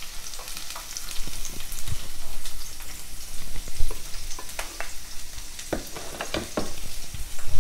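Chopped onion frying in hot oil in a nonstick kadai: a steady sizzle with frequent crackles and pops.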